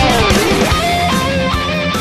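Background rock music led by electric guitar, with a run of notes that slide down in pitch and back up in the first second.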